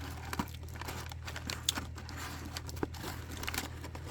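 Small tea sample packets rustling and crinkling as they are handled and sorted through, with irregular light clicks and taps over a steady low hum.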